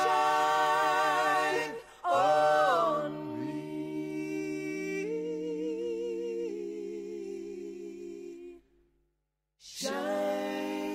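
A cappella choir singing sustained chords in close harmony. The voices break off briefly about two seconds in, slide down into a long held chord, then fall silent for about a second before starting another chord near the end.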